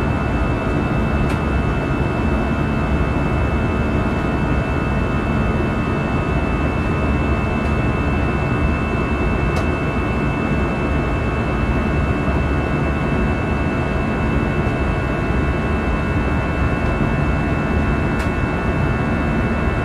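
Inside the cabin of an Airbus A320-214 in its climb, beside its CFM56-5B engine: a steady roar of engine and airflow with a cluster of steady tones over it. The tones are the fan's buzzsaw note at climb thrust.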